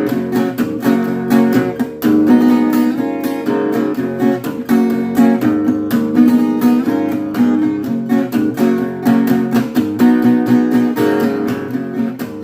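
Strummed acoustic guitar playing a steady rhythmic chord pattern: the instrumental introduction of a song, before the vocal comes in.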